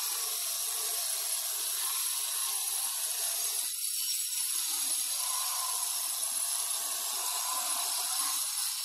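Handheld electric stone cutter with a water-fed blade cutting through a black granite slab: a steady high grinding whine.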